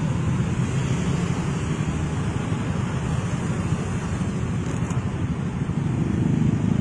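Motor scooter traffic passing close by, a steady rumble of engines and tyres mixed with wind buffeting the microphone, growing a little louder near the end.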